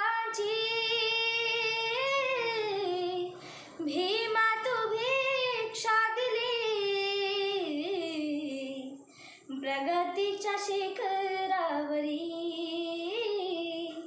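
A girl singing a Marathi song solo, holding long, gliding notes. She pauses briefly for breath about three and a half and nine seconds in.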